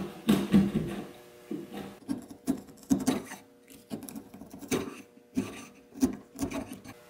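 Wood chisel pushed by hand into a 2x4 block, paring out a slot for a clamp bar in a string of short, sharp cuts, a couple a second.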